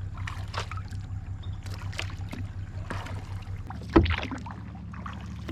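Kayak paddle strokes in the water, short splashes coming every half second or so over a steady low rumble. A sharp knock about four seconds in is the loudest sound.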